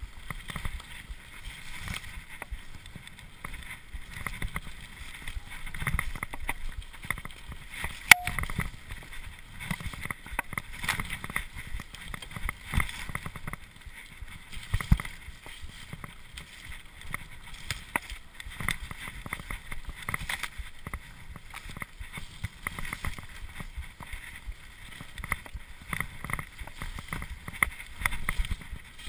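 Cube LTD Pro hardtail mountain bike riding fast down a rough, wet dirt trail: continuous irregular rattling and clattering from the bike and its tyres over the bumpy ground, with a sharp knock about eight seconds in and another about halfway.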